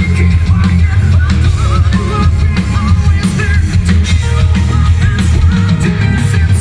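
Heavy metal band playing live and loud: distorted electric guitars, bass, drum kit and keyboards, with a singer's voice over the top.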